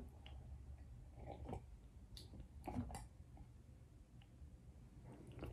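A person drinking from a mug: faint sips and swallows, a few soft mouth sounds.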